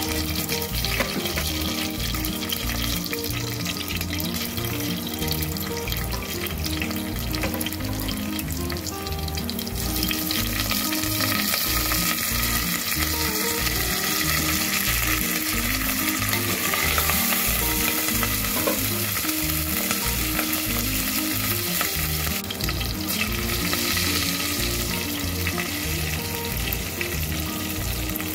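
Hot oil sizzling in a stainless steel pot as dry red chilies, garlic, curry leaves and turmeric fry for a tempering (tadka). The sizzle grows louder about ten seconds in and is heard over background music.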